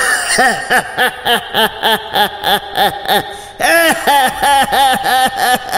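A hideous, cackling laugh voiced for a crow-like creature: quick rising-and-falling "ha" notes, about three a second, in two long runs with a short break about three and a half seconds in.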